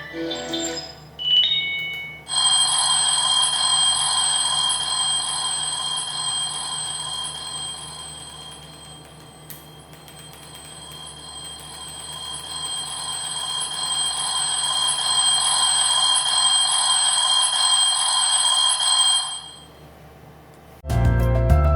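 Alarm clock sound machine playing a few short chime notes, then a steady electronic bell-ringing alarm tone from about two seconds in. The ring fades down toward the middle, swells back up, and stops a couple of seconds before the end.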